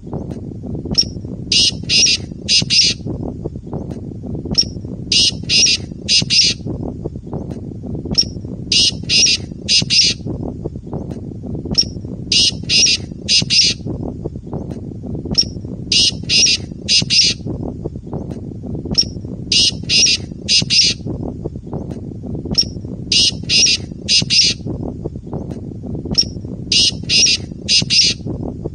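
Male black francolin giving its harsh territorial call, the phrase locally rendered as "Subhan teri qudrat". Each phrase is a short note followed by three loud grating notes, repeating about every three and a half seconds, over a steady low rumble.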